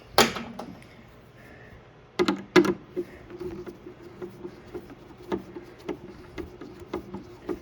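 Clicks and knocks of hands working on the opened plastic air fryer base and its wiring: one sharp click at the start, two louder knocks a little over two seconds in, then a run of faint small ticks, over a low steady hum.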